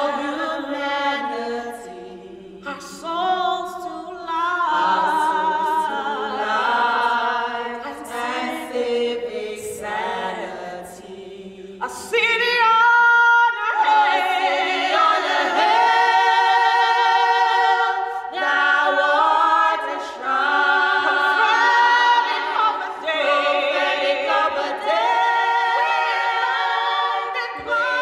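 An a cappella choir singing unaccompanied in held chords, the voices wavering with vibrato. About twelve seconds in, the lowest voices drop out and the upper voices grow louder.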